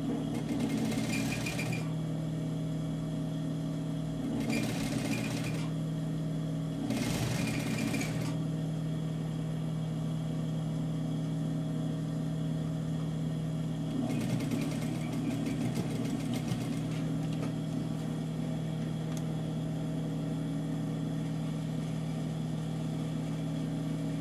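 Sewing machine stitching in four short runs, the last one the longest, over a steady motor hum.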